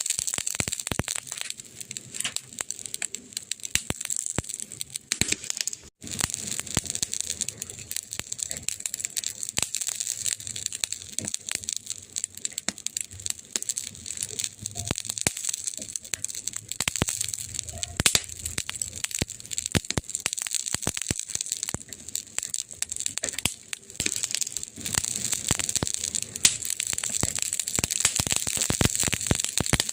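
Burning wood crackling steadily: a dense, irregular run of sharp snaps and pops over a constant hiss.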